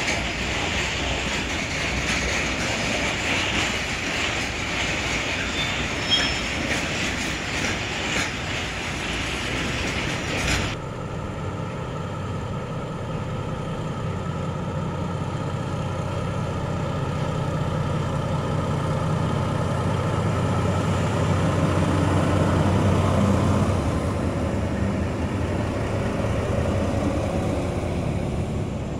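Two SNCF BB 69400 diesel shunting locomotives working in multiple, their engines running with a low, steady note that grows louder around twenty seconds in and then eases off as they move through the yard. Before that, a steady rushing hiss fills the first ten seconds and cuts off suddenly.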